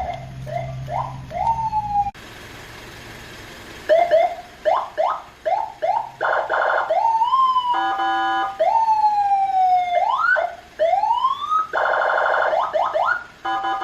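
Senken CJB100BD electronic siren through a Senken YD100i siren speaker, cycling through its tones: rapid yelp sweeps, a fast buzzing warble, slow rising and falling wails, and twice a steady blaring horn-like chord. About two to four seconds in, a steady hiss fills a brief gap between tones.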